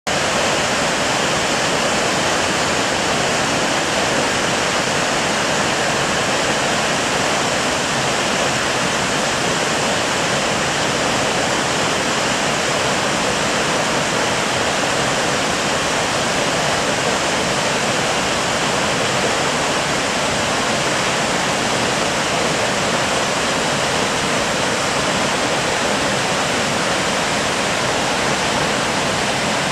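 A waterfall's water pouring down in a steady, unbroken rush, with no change from start to end.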